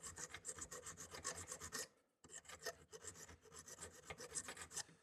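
A hand file rasping across the edge of a thin steel plate in quick, short strokes, taking off the sharp sheared edge. The strokes pause briefly about two seconds in, then resume and stop near the end.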